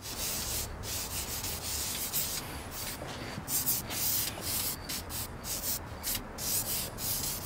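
Aerosol can of Dupli-Color silver wheel paint spraying in a run of short hissing passes, each cut by a brief pause, as a coat goes onto an alloy rim.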